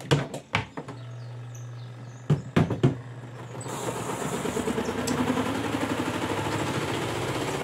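Twin-tub washing machine's spin dryer starting up: a few clicks, then a low motor hum, a few knocks as the basket bumps, then a whir that slowly rises in pitch as the basket spins up. The knocking comes from an unevenly loaded basket hitting and wobbling.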